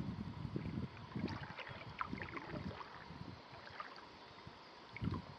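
Quiet canoe paddling: small splashes, drips and water lapping from the paddle and hull, with soft low knocks and one slightly louder thump near the end.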